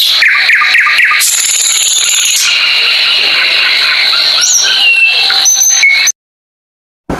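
Birds chirping and whistling in short calls at several pitches over a steady high insect buzz, cutting off suddenly about six seconds in.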